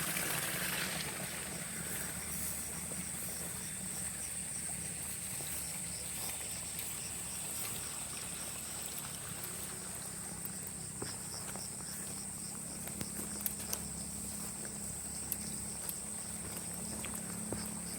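Insects droning steadily in a high-pitched, unbroken tone, with a faster pulsing chirp beneath it for the first half, over a low steady hum. A few small sharp clicks or knocks come in the second half.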